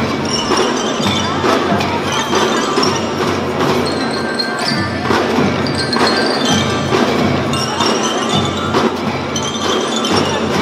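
Children's marching drum band playing: bell lyres ring out a melody over a steady beat of snare and bass drums, with cymbal crashes.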